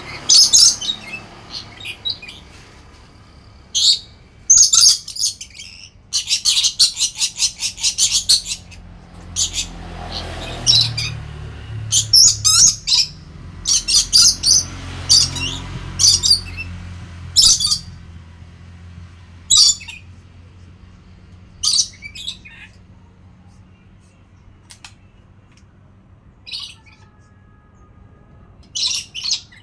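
Pet lory (burung nuri) calling: loud, shrill squawks and chirps at irregular intervals, with a rapid run of repeated notes about a third of the way in, the calls growing sparser near the end.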